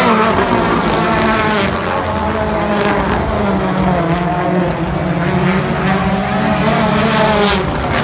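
Rallycross supercars racing past, their engines revving hard and rising and falling in pitch as they accelerate and lift, several engines heard at once.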